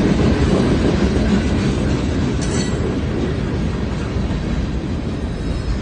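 Freight cars rolling past on the track: a steady rumble of steel wheels on the rails, with a brief high metallic sound about two and a half seconds in. The rumble eases slightly toward the end.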